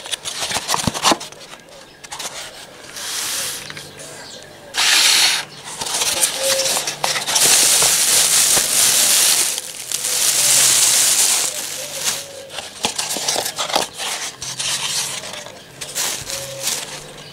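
Hands rustling and crinkling a clear plastic bag of decorative straw and handling a cardboard egg carton and plastic egg tray, with light clicks and taps between. The loudest rustling comes about five seconds in and again in two long stretches around eight and eleven seconds.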